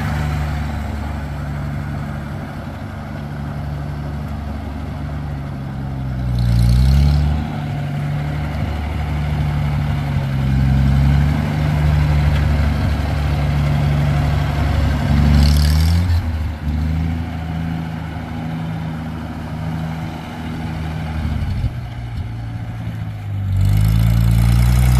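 Ford 8N tractor's six-cylinder Funk conversion engine running as the tractor is driven, its speed rising and falling about three times.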